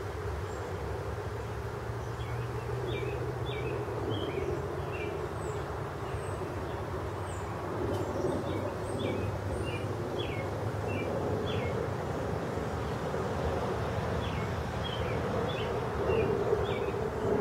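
Steady low outdoor rumble, like distant traffic, with many short, high chirps of small birds scattered through it.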